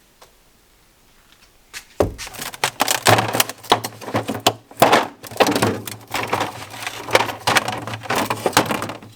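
Rapid, irregular clattering and knocking of hard objects being handled, over a low steady hum, starting about two seconds in.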